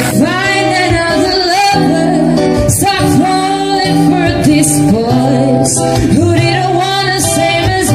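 A woman singing live into a microphone over instrumental accompaniment, a slow melody with long held notes and some sliding between pitches.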